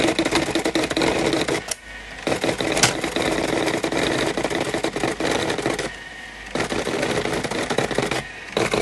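Sharp CE-1600P four-colour pen plotter printer drawing out a BASIC program listing: a dense, steady stream of fast ticking and whirring from its pen and paper-feed motors, broken by three brief lulls between lines, with one sharp click about three seconds in.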